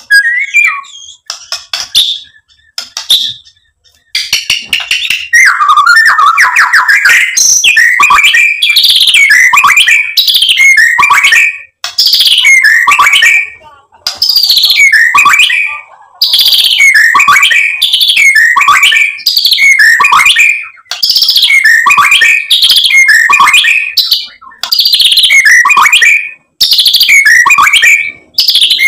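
White-rumped shama singing: a few scattered calls, then from about four seconds in a loud, fast run of rich whistled phrases, repeated with only brief pauses.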